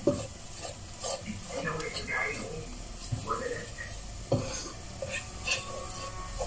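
A utensil stirring and scraping a crumbly flour-and-oil roux around a frying pan, with light sizzling as the flour browns in the meat juices. A few sharper knocks and scrapes against the pan stand out.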